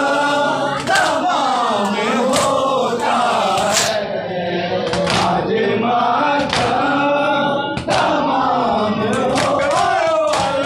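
A group of men chanting a Shia noha in unison, with sharp hand strikes on the chest in matam, about one every second and a half, coming quicker near the end.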